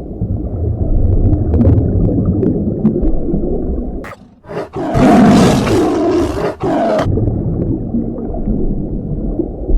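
A large wild animal roaring deeply and continuously, louder and harsher for a stretch a little past the middle.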